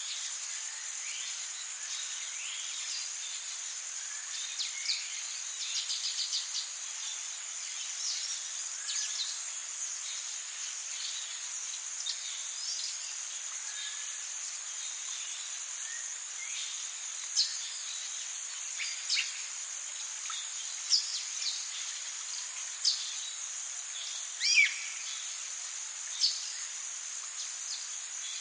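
Tropical rainforest ambience: a steady high insect drone, with frequent short bird chirps and whistles over it, some louder calls standing out in the second half.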